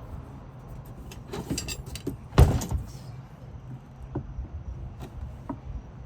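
Scattered light knocks and clicks of a deck hatch being handled and shifted on a boat's deck, with one louder knock about two and a half seconds in, over a steady low hum.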